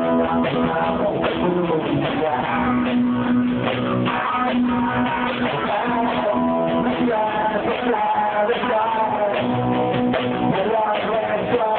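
Rock band playing live: strummed electric guitars over a drum kit.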